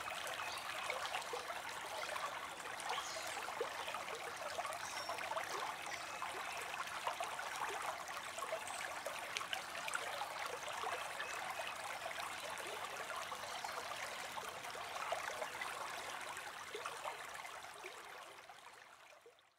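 Steady trickling and splashing of running water, like a small stream, fading out near the end.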